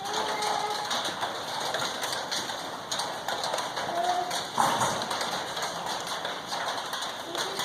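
Steady hiss of rain falling on the barn, with a few light taps and knocks.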